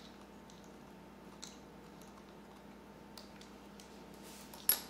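A few light clicks and taps from a small screwdriver and fingers working ribbon cables into their connectors on a disassembled compact digital camera's circuit board, the sharpest about four and a half seconds in.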